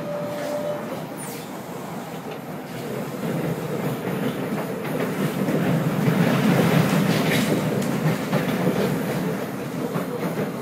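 An SMRT C751B metro train running along its track, heard from inside the carriage: a steady rumble with a few faint clicks. It grows louder about a third of the way in and eases off near the end.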